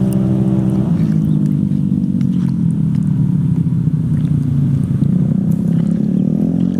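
A vehicle engine idling steadily, its pitch shifting slightly about a second in and again near the end.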